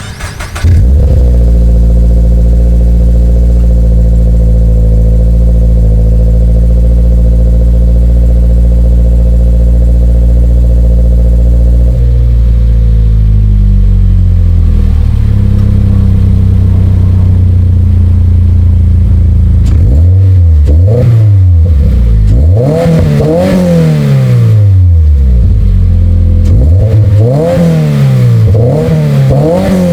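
Toyota GR86/Subaru BRZ 2.4-litre flat-four exhaust through a dual-exit axle-back with 5-inch mufflers: the engine starts about a second in and holds a raised idle, which drops to a lower idle around twelve seconds in. From about twenty seconds it is revved repeatedly, the pitch rising and falling with each rev; the tone is more aggressive than stock but fairly quiet.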